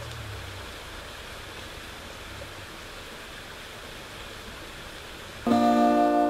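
Steady hiss of rain. About five and a half seconds in, a loud ringing chord of bell-like music starts suddenly and becomes the loudest sound.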